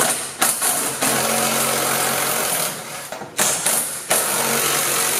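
Cordless impact driver with a 5/8 socket backing bolts out of a truck's rear bumper: a couple of short trigger bursts, then a long run, and another long run starting about four seconds in.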